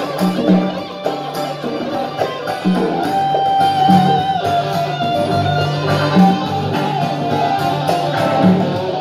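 Live band playing an instrumental passage led by acoustic and electric guitars, with drums keeping a steady beat.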